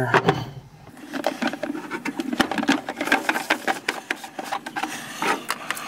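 Plastic water-softener cartridge housing being screwed by hand onto its head: a quick, uneven run of small plastic clicks and scrapes as the threaded blue ring turns.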